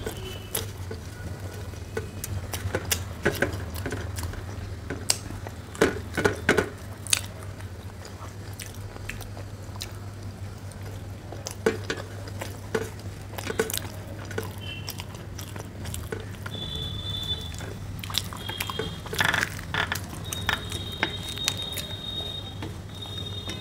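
Close-miked chewing and biting of crispy fried puri and curry: irregular crunches, mouth clicks and wet smacks, some sharper and louder than others, over a steady low hum.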